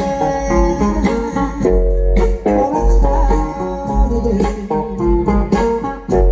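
Instrumental music with no singing: plucked guitar over a heavy bass line and regular drum hits.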